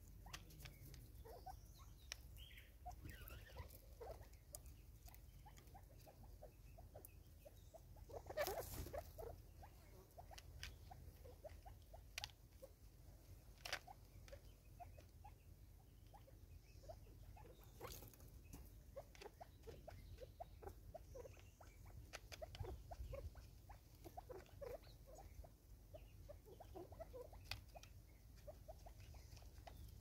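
Natal spurfowl pecking at seed in a cut plastic-bottle feeder: faint, irregular tapping, with a louder rustle about eight and a half seconds in.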